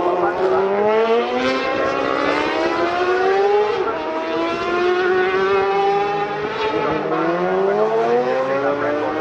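Several racing motorcycles passing at speed one after another, their engine notes rising and then dropping as each goes by.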